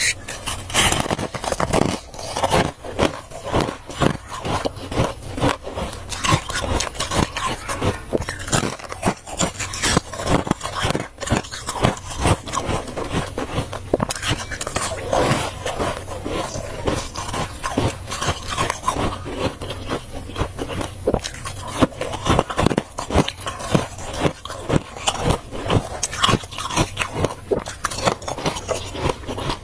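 A person biting and chewing clumps of soft, powdery freezer frost close to the microphone: a dense, continuous run of crisp crunches.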